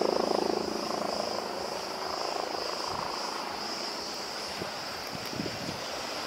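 A distant engine drone with a fine pulsing, strongest at the start and fading over the first couple of seconds, over a steady high-pitched hiss.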